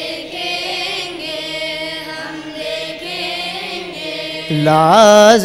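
Choir of students singing a madeh, unaccompanied, holding a melodic line with no clear words. About four and a half seconds in, the singing gets much louder.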